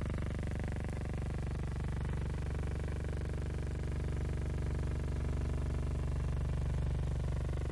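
WWII helicopter's piston engine and rotor running steadily: a low, even drone that grows slightly louder in the second half.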